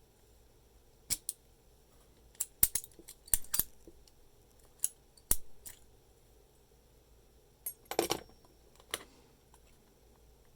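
Sharp metallic clicks and snaps, a dozen or so at irregular intervals, with the loudest cluster about eight seconds in: a key being worked in a US registered postal padlock.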